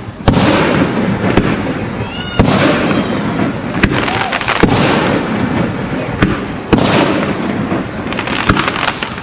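Aerial firework shells bursting: a run of sharp bangs, the loudest just after the start, at about two and a half seconds and near seven seconds, each followed by crackling and a rumbling echo.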